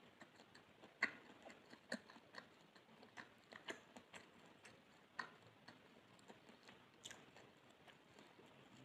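Close-miked chewing of soft pandan sponge cake: quiet, irregular wet mouth clicks, with sharper ones about a second in, near two seconds and just past five seconds.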